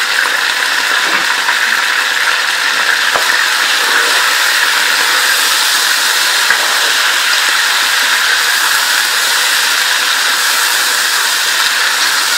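Raw chicken pieces frying in hot oil in a nonstick pan: a loud, steady sizzle as the meat sears.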